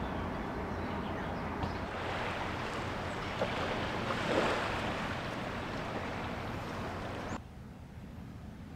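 Gentle sea waves washing ashore: a steady, soft hush. It drops to a quieter background about seven and a half seconds in.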